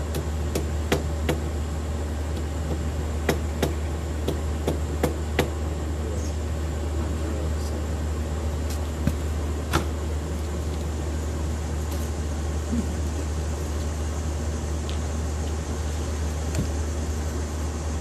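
A steady low mechanical hum with scattered light clicks and taps, most of them in the first six seconds and two more near ten seconds in.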